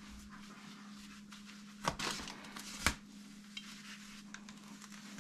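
Small handling noises: light rustling and two sharp clacks, about two and three seconds in, over a faint steady hum.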